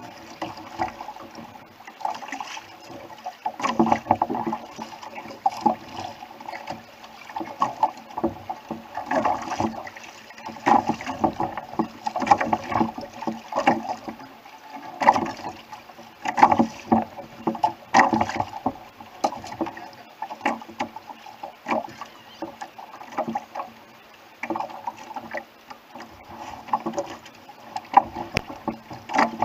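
Sea water slapping and splashing against the hull of a Hobie Adventure Island sailing kayak under way, with irregular knocks from the hull and rigging.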